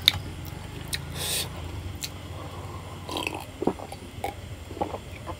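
Close-miked eating sounds: a man chewing a mouthful of rice and spicy pork curry, with wet mouth clicks. A few seconds in come a handful of short gulps as he drinks water from a glass.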